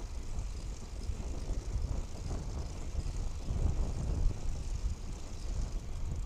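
Bicycle riding on a paved path: a steady, uneven low rumble of wind buffeting the microphone along with tyre noise on the asphalt.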